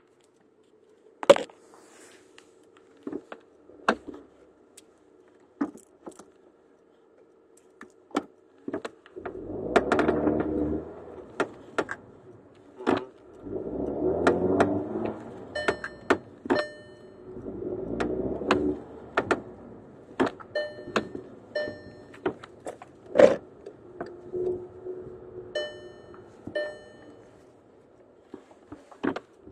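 VW Golf 6 GTI driving, with repeated sharp knocks and clicks and short squeaks, while the engine pulls under acceleration several times. These are the squeaks and knocks the car makes in turns and under acceleration.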